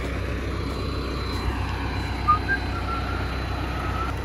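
An engine idling steadily, with a faint, thin whine from the winch as it drags a wrecked SUV onto a flatbed trailer, starting about halfway through.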